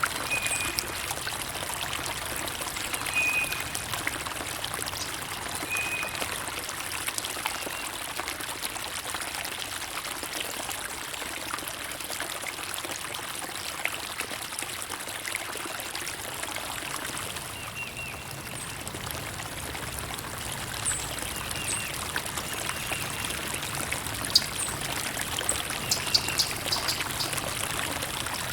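Water trickling and pouring steadily, like a small stream. Brief bird calls come through now and then: a short repeated note in the first few seconds and a few high chirps near the end.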